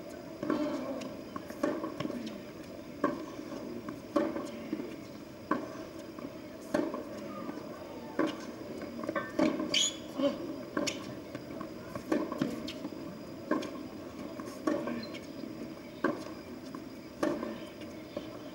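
Tennis ball struck back and forth by rackets in a long baseline rally on a hard court, a sharp pop about every second and a quarter, with a brief high squeak about halfway through.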